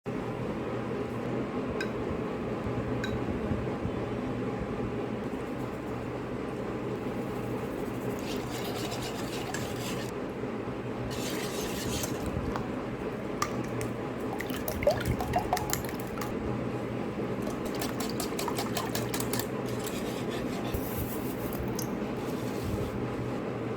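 Kitchen cooking sounds: a steady hiss of liquid with scattered clinks of utensils against dishes and pans.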